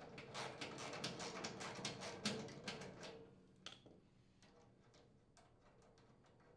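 Socket ratchet clicking rapidly as it runs a nut off a bolt, stopping about three seconds in. A single light tap follows.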